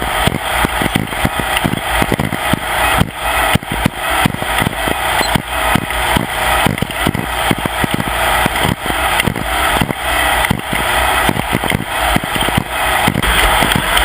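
Off-road race vehicle running at speed: a loud, steady engine and driving noise broken by constant irregular knocks and rattles.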